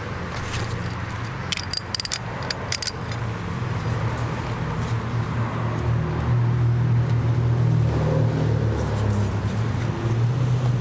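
A few metal clinks from a chain press tool being worked on a motorcycle chain's master link. Under them runs a low steady rumble that grows louder partway through.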